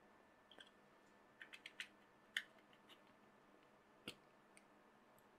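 Faint, scattered small clicks and ticks of a screwdriver turning the short screws that hold a DT830B multimeter kit's circuit board into its plastic case. There is a quick run of four clicks about a second and a half in, the loudest click just before the halfway point, and a couple more about four seconds in.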